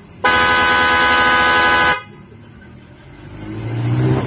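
A pair of Osin dual-track snail-type electric horns, tuned to 400 Hz and 500 Hz, sounding together in one steady blast of nearly two seconds. A low hum swells up near the end.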